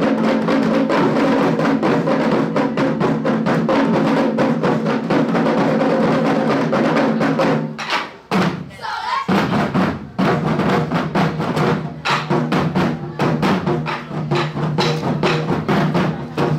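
Taiko drum ensemble playing a fast, dense run of drum strikes over steady accompanying music. It breaks off briefly about eight seconds in, then starts again.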